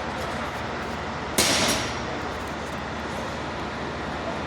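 Mercedes-Benz Arocs truck diesel engine running steadily, with a short, loud hiss about a second and a half in.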